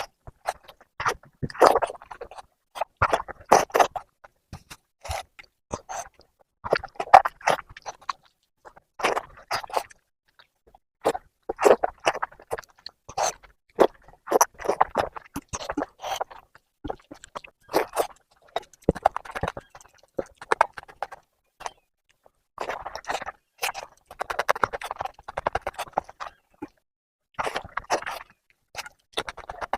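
Close-miked eating sounds: wet chewing and lip-smacking of oily mutton-fat curry, in irregular clusters of clicks with short pauses between mouthfuls.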